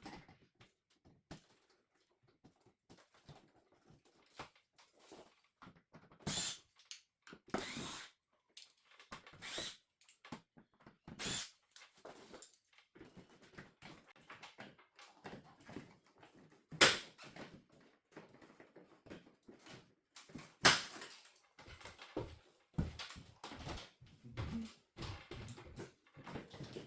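Irregular clicks and knocks of hard objects being handled, with two sharp, much louder knocks partway through.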